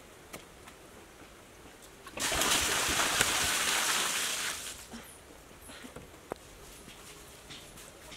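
Water poured from a pot splashing onto the concrete floor of a newly built pool: a steady gush starting about two seconds in and lasting about two and a half seconds.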